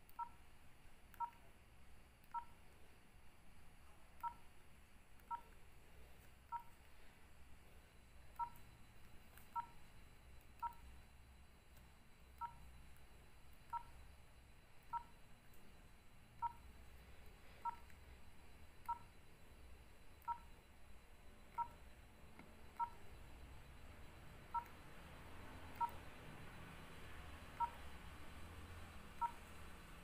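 Nokia 3806 keypad tones: about two dozen short two-tone beeps, one per key press, irregularly spaced about a second apart as the menus are stepped through.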